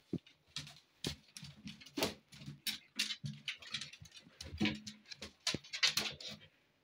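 Irregular scratching, tapping and clicking of a cat's paws and claws on a laminate floor as it rolls on its side and scrambles to its feet.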